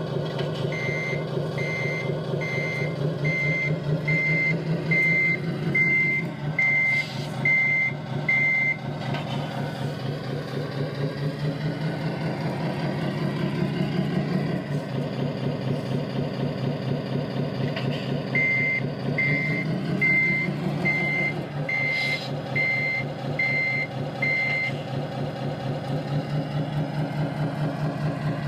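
Servonaut sound module in an RC Scania R620 tractor unit playing its diesel truck engine sound through the model's speaker, the engine note rising and falling as the truck drives. Two runs of reversing beeps, a little over one a second, sound near the start and again about two-thirds of the way through.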